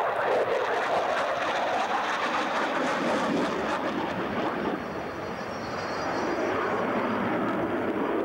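Delta-wing canard fighter jet flying past, its engine a steady rush of jet noise that eases slightly about five seconds in and then builds again.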